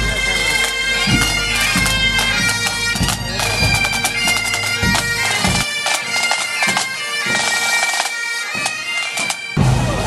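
Pipe band playing on the march: Highland bagpipes sounding a melody over their steady drone, with drums beating under them. The piping cuts off suddenly near the end.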